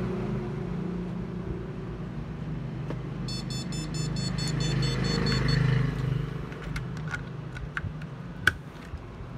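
A steady low hum and rumble, with an electronic beeper chirping rapidly in a quick run of short pulses for about two seconds near the middle. A few sharp clicks follow in the last third; one a little before the end is the loudest sound.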